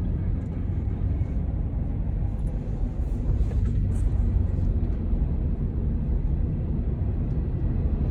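Steady low vehicle rumble heard from inside a car's cabin, with no distinct events standing out.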